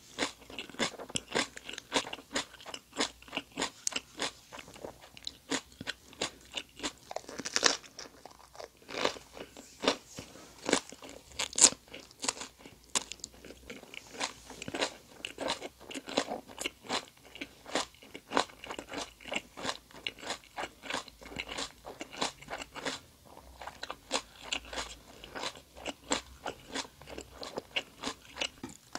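Close-miked chewing of Vietnamese fresh spring rolls (gỏi cuốn), rice paper wrapped around crisp raw vegetables and shrimp, eaten with the mouth closed. It makes a steady run of sharp, wet crunches, about two to three a second.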